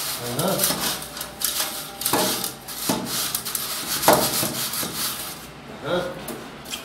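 Hand rubbing and scraping damp sand-and-cement screed mortar along a guide rail, in a series of gritty strokes.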